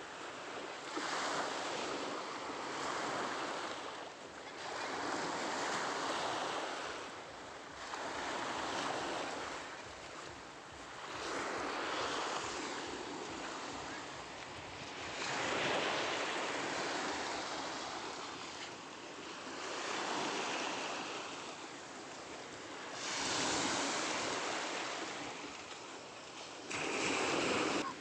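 Small sea waves breaking and washing up a stony shore, the hiss of the surf swelling and falling back about every three to four seconds.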